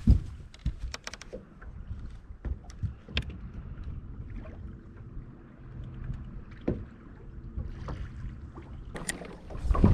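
Wind buffeting the microphone and small waves slapping against a bass boat's hull, with scattered clicks and taps from a spinning rod and reel being cast and retrieved. There is a sharp knock right at the start.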